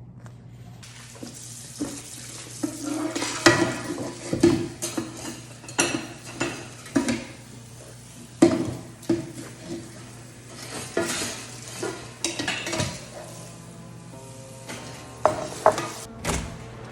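Irregular clattering and knocking of hard objects being handled, over a steady low hum.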